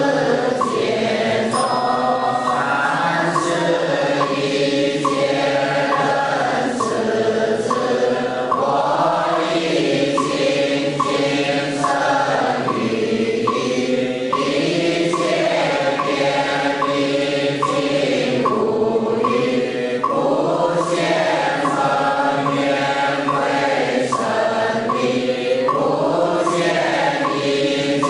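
A congregation chanting a Buddhist sutra together in Chinese, in a steady unison drone, kept in time by a wooden fish (muyu) struck at an even beat.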